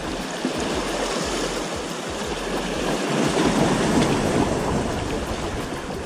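Sea waves washing against the boulders of a rock breakwater, the surge swelling about midway and then easing off.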